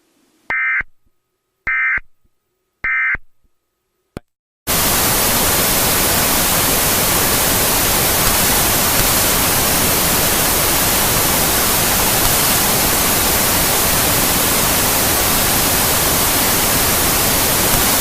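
Three short electronic data bursts about a second apart, the end-of-message code that closes an Emergency Alert System broadcast, then a click and loud steady static hiss.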